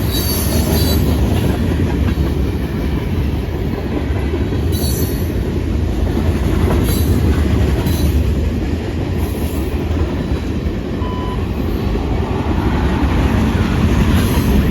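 Freight train cars rolling past with a steady heavy rumble of wheels on rail. Brief high-pitched wheel squeals come in a few times: at the start, then around five, seven and nine and a half seconds in.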